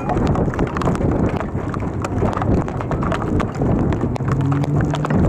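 Hail pelting a vehicle's roof and body: a dense, rapid, irregular clatter of hard knocks over the rush of the storm.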